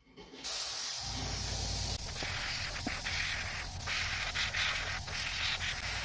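Airbrush spraying Wicked Phthalo Green acrylic paint in stripes onto a wooden lure: a steady hiss of air and paint that starts about half a second in, with a low hum beneath it from about a second in.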